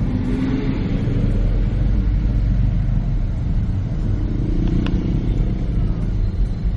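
Steady low rumble of a road vehicle in motion, with a short click about five seconds in.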